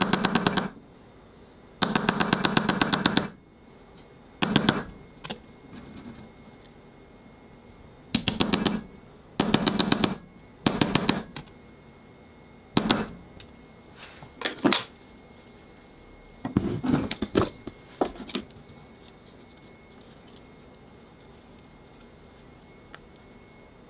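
Crossguard lightsaber hilt's sound-effect board playing bursts of fast, even crackling through its small speaker, about ten bursts of under a second and a half each, the longest and loudest about two seconds in.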